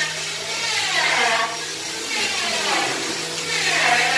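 Power tool in a woodworking shop whining over a steady low hum, its pitch dipping and recovering in repeated swoops about every second and a half, as if loaded and released against the wood.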